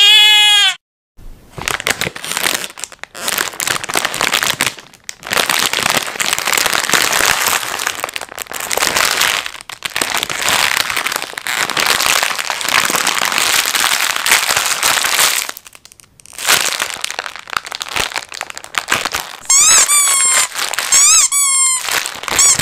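A bleat ends at the very start. Then comes a long stretch of dense, continuous crinkling and crackling, with a brief break about sixteen seconds in. Near the end it gives way to a run of short high squeaks, each falling in pitch.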